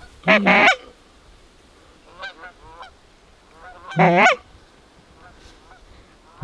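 Canada geese honking. Two loud, clipped honks about half a second long come near the start and about four seconds in, with fainter honks from the flock between them.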